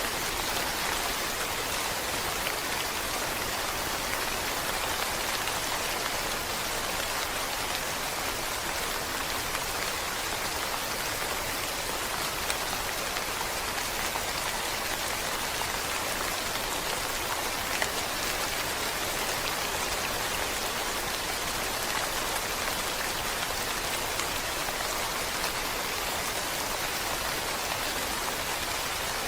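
Steady rain falling, an even hiss with no change in strength and a couple of sharper drop ticks partway through.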